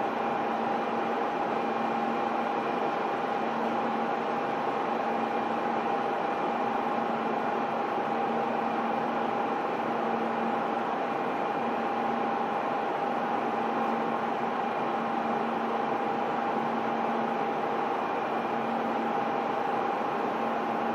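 A stationary 800-series Shinkansen train's onboard equipment humming steadily, with a steady whine on top and no change throughout.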